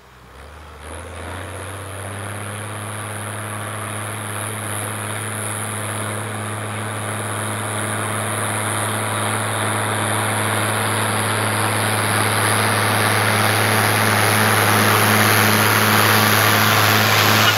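International Harvester 956 XL tractor's six-cylinder diesel working at a steady engine speed while pulling a stubble cultivator. It grows steadily louder as the tractor approaches.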